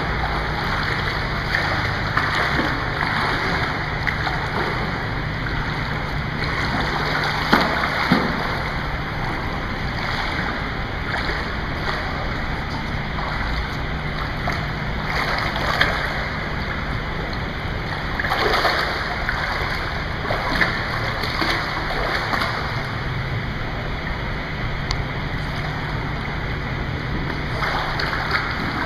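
Pool water splashing and lapping as a swimmer strokes and kicks through it, with a few sharper splashes, over a steady low rumble.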